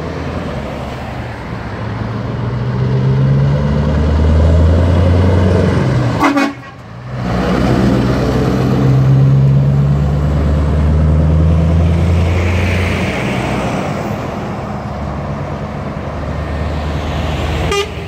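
Scania V8 truck engine pulling hard as the tractor unit hauls a container trailer past, a deep, loud engine note that builds up, breaks off briefly about six seconds in, then pulls again and slowly eases as the truck moves away.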